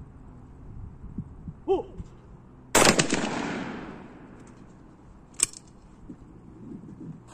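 A short shouted call, then about a second later a single loud shotgun shot that rings on and fades over about a second. Near the end comes one sharp click as the break-action shotgun is opened.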